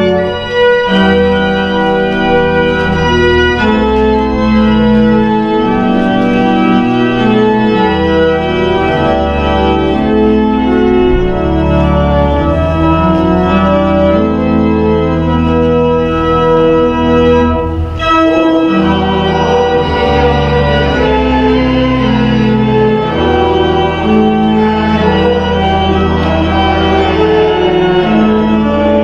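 Church organ playing the postlude after the benediction: held chords over a stepping bass line, with a brief pause about eighteen seconds in.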